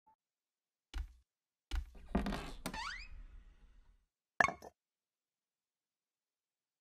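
Cartoon sound effects: a knock about a second in, then a springy boing with a rising whistle, and a short sharp clink as the glass jar's lid is lifted about four and a half seconds in.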